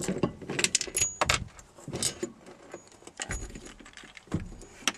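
Irregular clinks and rattles of small metal hardware being handled while the rear-view mirror mount is taken off the windshield, with a few duller knocks.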